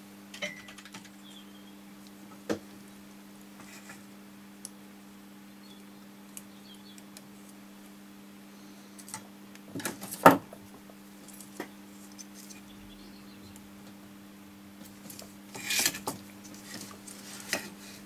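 Sparse light clicks and taps of small parts being handled on a circuit board: resistor wire leads being bent and fitted. The sharpest tap comes about ten seconds in, with a cluster of clicks near the end. A faint steady hum sits underneath.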